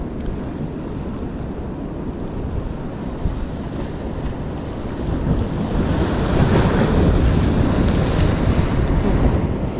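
Sea waves washing against rocks, swelling louder from about five seconds in as a wave breaks and splashes over the rocks. Wind buffets the microphone with a low rumble throughout.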